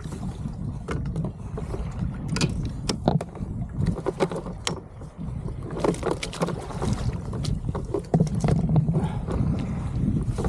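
Irregular knocks, clicks and splashes from handling gear on a plastic fishing kayak on the water, over a steady low rumble of wind on the microphone.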